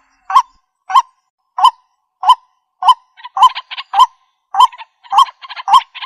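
White-breasted waterhen calling: a regular series of short calls, about ten in all, one every half second or so. From about halfway, quicker extra notes fill the gaps between them.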